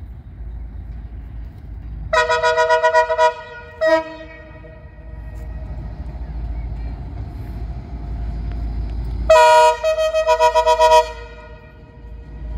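Horn of an approaching CNR CKD8H diesel locomotive, a chord of several notes sounding at once: a long blast about two seconds in, a short toot a second later, then another long blast, briefly broken, from about nine to eleven seconds. A low rumble of the oncoming train runs underneath.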